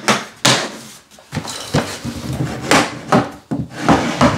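Handheld flooring tapping block knocking against luxury vinyl planks to close their click-lock joints, a string of sharp, unevenly spaced knocks.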